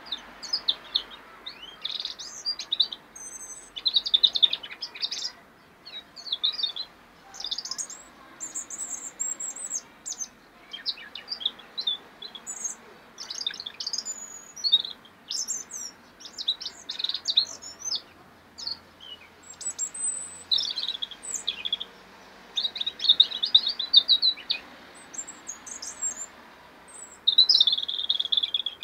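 European robin singing: a long run of high, thin, warbling phrases, each a second or two long, separated by short pauses.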